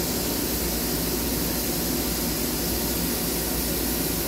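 Okuma Genos L200EM CNC lathe running a program behind its closed door: a steady hiss of flood coolant spraying inside the enclosure over the even running hum of the machine.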